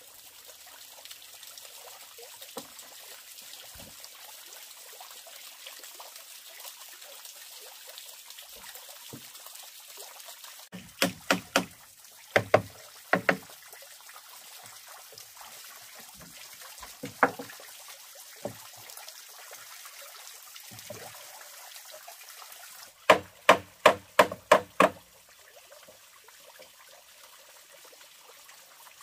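Hammer driving nails into a small wooden box: a run of about five ringing strikes partway through, a lone strike or two, and a fast run of about seven strikes near the end. Water trickles steadily into a pond throughout.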